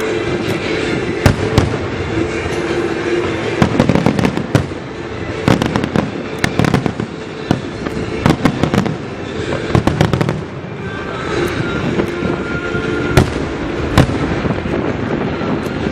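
Aerial fireworks shells bursting in quick succession, with sharp bangs coming thickest in a dense volley through the middle.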